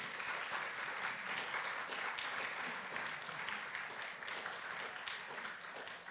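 Audience applauding, a steady mass of hand claps that eases slightly near the end.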